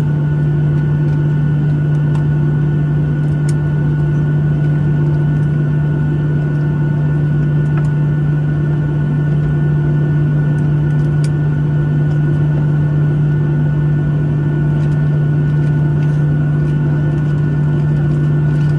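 Steady drone inside the cabin of a Boeing 737-800 standing on the apron, with a strong constant low hum and a faint steady high whine. A couple of faint clicks can be heard.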